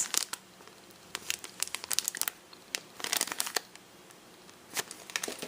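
Crinkling and rustling as handmade paper craft tickets are handled, in two short flurries of crackles with a single crackle near the end.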